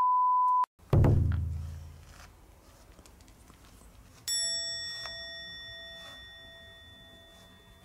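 Edited-in sound effects: a short, steady electronic beep, then a deep thud that dies away over about a second, and a few seconds later a single bell-like ding that rings out slowly.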